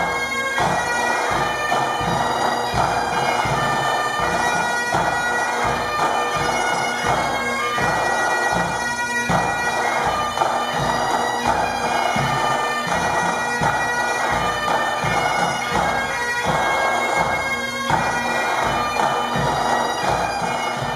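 Pipe band playing: Great Highland bagpipes sounding a steady drone under the chanter melody, with snare drums and a bass drum beating about twice a second.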